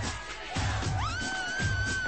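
Upbeat pop music with a steady beat about twice a second; about halfway through, a high note glides up and is held for about a second.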